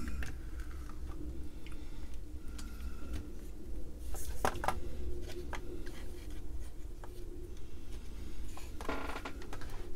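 The plastic case and tape mechanism of an Atari 410 cassette recorder being handled and set down on a bench: scattered light clicks and knocks with some rubbing, loudest just after four seconds in and again near the end.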